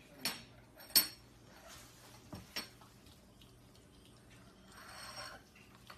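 A metal spoon clinking a few times against a bowl and a wooden floor as a puppy noses peanut butter off it; the loudest clink comes about a second in. Near the end there is a soft licking sound as the puppy licks the spoon.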